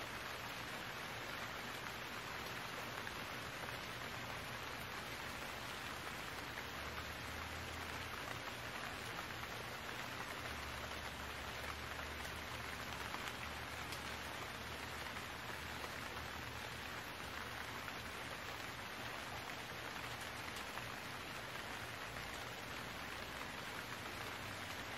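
Steady rain falling, an even hiss with no let-up. A faint low hum comes in under it for several seconds in the middle.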